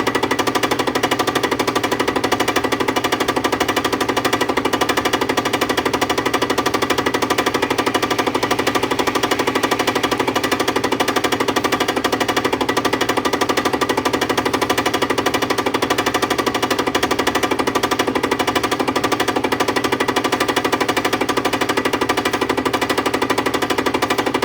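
Milling machine skimming the surface of a metal machine part: the cutter's teeth strike the work in a fast, even rapping, over a steady hum of tones, unchanged throughout.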